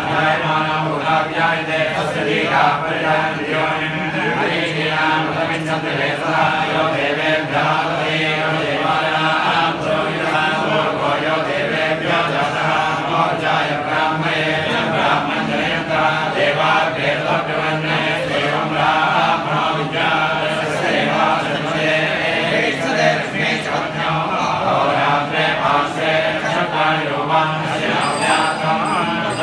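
A group of priests chanting mantras together in a continuous stream, many men's voices held on a steady reciting pitch.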